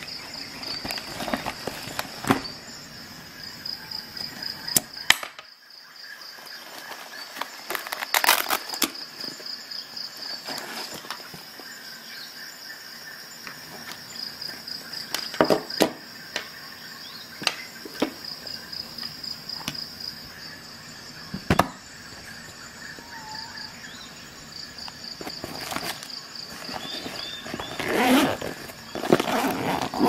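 Handling of a nylon first-aid pouch and its webbing strap and plastic buckle: scattered clicks, taps and rustles, with a longer, louder rustling stretch near the end. A high pulsing chirp comes and goes in short runs in the background.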